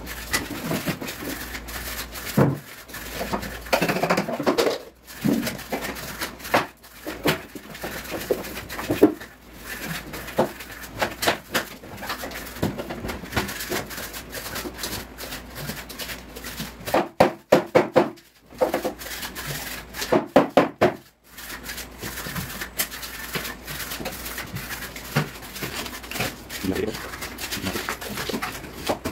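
Irregular knocks, taps and scraping from hand work on a wall: loose wall panels being handled, and flaking paint scraped off with a putty knife, in quick runs of strokes.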